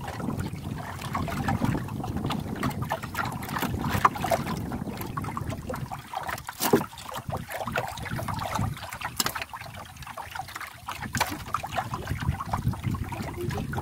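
Wind buffeting the microphone over water lapping against a small wooden canoe's hull, with scattered light clicks and knocks from handling in the boat.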